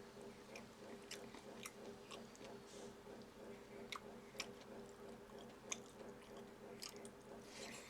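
Close-miked chewing of food, with irregular short wet mouth clicks and smacks, over a faint steady hum.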